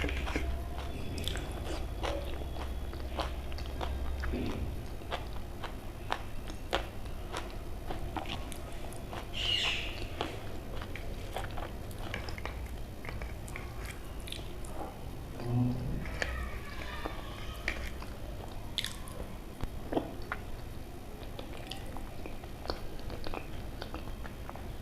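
A person chewing and eating close to the microphone, with many small wet mouth clicks, the sounds of a mukbang eating video. A low hum stops about four seconds in.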